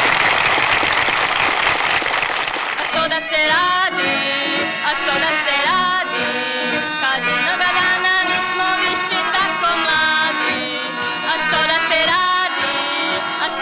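Audience applause for about the first three seconds, then a small dance band with accordion, saxophone, trumpet and drums starts up with a young woman singing.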